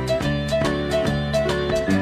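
Upbeat background music: plucked guitar-like notes over a steady beat.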